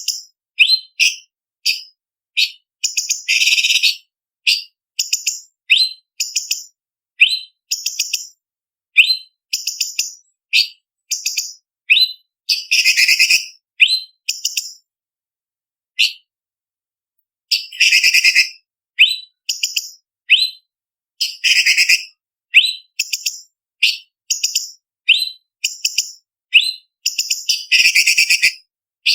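Cucak cungkok leafbird singing: quick runs of sharp, high whistled notes, broken every few seconds by harsher rasping bursts, with a short pause about halfway.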